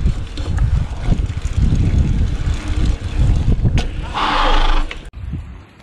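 Wind buffeting the microphone of a chest-mounted camera on a rider pedalling a mountain bike, a dense uneven low rumble. About four seconds in a louder hiss lasts about a second, then the sound drops off suddenly.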